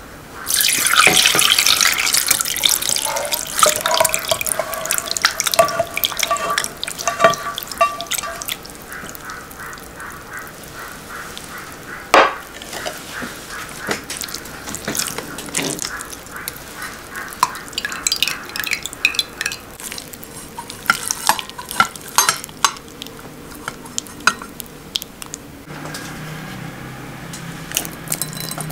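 Curds and whey poured from a frying pan through a stainless-steel mesh strainer into a glass bowl, splashing for several seconds: draining the whey from the curds in mozzarella making. Then a spatula scrapes and presses the curds in the strainer, with scattered clicks and a sharp knock against the mesh.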